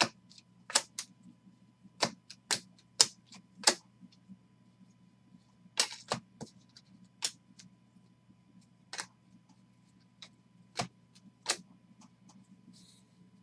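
Trading cards being handled on a table: about a dozen sharp clicks and snaps at irregular intervals, some in quick pairs, with short pauses between groups.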